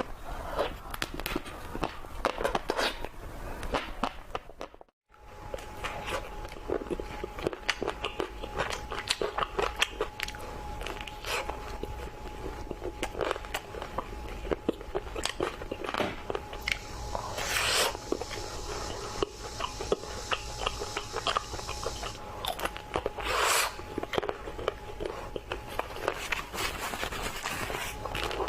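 Close-miked eating of ice cream: biting and chewing with many sharp little mouth clicks and smacks and a few louder bites. The sound drops out briefly about five seconds in, and a faint steady tone runs under it after that.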